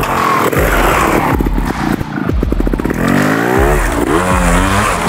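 Gas Gas trials motorcycle engine pulling away at low revs with a chugging beat, then revved up sharply twice as the bike climbs a steep dirt bank.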